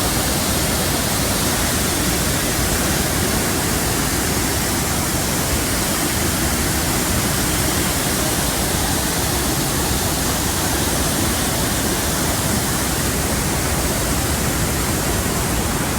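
The Krimml Waterfalls' falling water: a loud, steady, unbroken rush.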